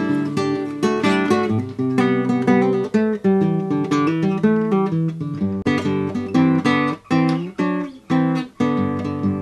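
Instrumental theme music of quick plucked notes in a steady rhythm.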